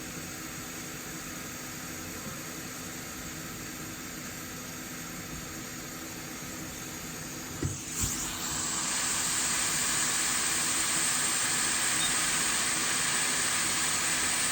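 Hot air rework station blowing, a steady hiss over a low fan hum, while the solder joints of a PS5 HDMI port are heated. About eight seconds in there are two short knocks, and then the air hiss turns louder and brighter.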